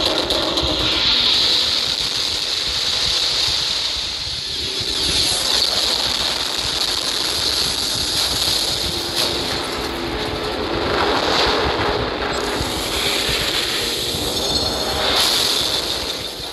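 Continuous loud rumble and mechanical din of giant robots battling in an animation, with several surges.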